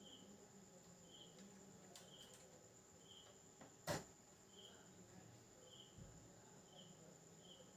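Near silence with faint, short, high chirps about once a second, cricket-like, and a single sharp click about four seconds in.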